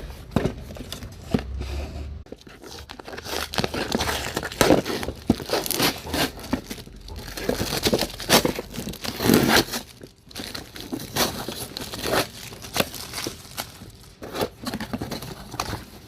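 Packaging being torn open and handled by hand: irregular crinkling and tearing with scattered sharp crackles.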